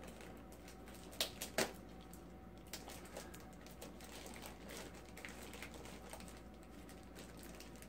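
Faint handling noise of a plastic-wrapped network video recorder being lifted and turned over: two sharp taps about a second and a half in, then scattered light ticks and rustles.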